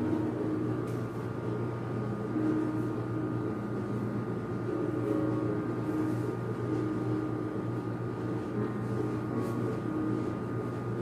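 Steady low mechanical hum with a couple of faint constant higher tones over it, and a few soft clicks.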